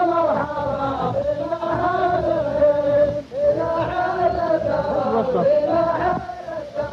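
Men chanting a verse of qalta sung poetry in unison, in long drawn-out notes. The chant runs in two phrases with a short break about three seconds in.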